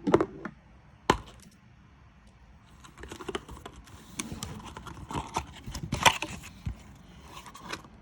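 Packaging and box contents being handled during an unboxing: a couple of sharp clicks and a knock at first, a short lull, then a busy run of small clicks, clatter and rustling with a louder knock about six seconds in.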